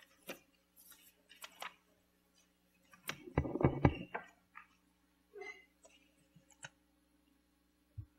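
Handling noise at a lectern microphone: scattered light clicks and rustles, then about a second of loud rapid knocking and rubbing about three seconds in as the podium and its microphone are handled, and a single thump near the end.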